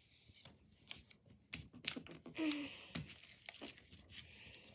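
A sheet of paper being handled and folded by hand, with soft crinkles and a few short sharp creasing crackles.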